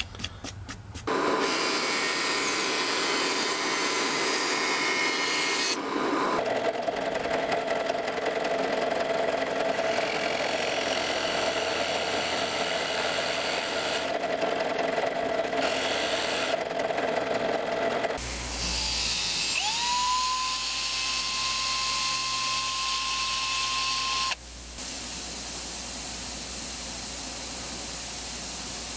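Workshop power tools running in turn, each cut off abruptly: a drill press bit boring into a wood block, then a motor whine that rises and settles into a steady tone, then a bench grinder wheel running with a part held against it.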